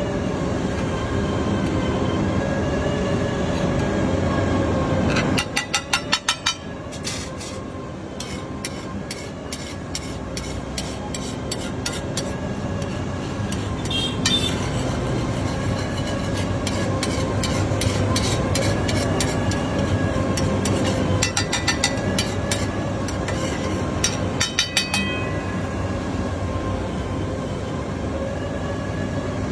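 Rapid runs of metal clicks, like a steel spatula chopping and tapping on a flat iron griddle, over a steady hiss and hum from the stall.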